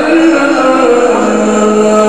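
A man chanting Quran recitation in a melodic style, holding long drawn-out notes; the pitch drops to a lower, steady note about a second in.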